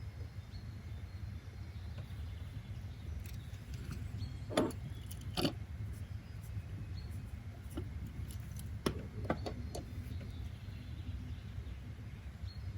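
Steady low background rumble, with a handful of small clicks and knocks: two a little under halfway through and a couple more about two-thirds of the way in.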